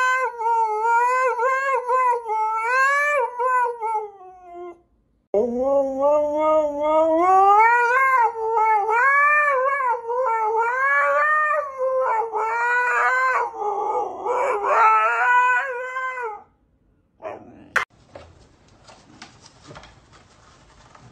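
Siberian husky howling in long calls whose pitch wavers up and down, in two spells with a short break about five seconds in. About seventeen seconds in the howling stops, leaving faint room noise and one sharp click.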